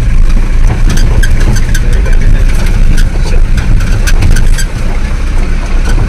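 Jeep engine running with the body rattling and knocking as it moves over a rough dirt track, heard from inside the cabin as a heavy rumble with many short knocks and clatters.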